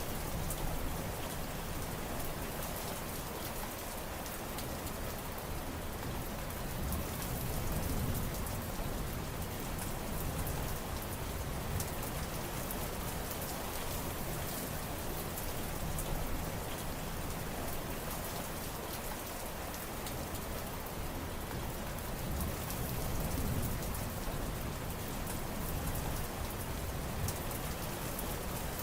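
Steady rain falling, with fine patter of drops striking surfaces over a continuous hiss and a slight low rumble that swells and eases a couple of times.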